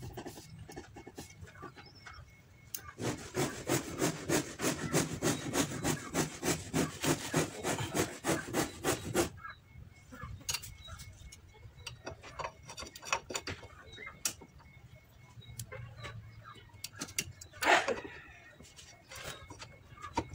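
Metal hand-work on a car's rear drum brake as new brake shoes and springs are fitted: a fast run of evenly repeated scraping strokes for about six seconds, then scattered clicks and clanks of metal parts, with one louder metallic clatter near the end.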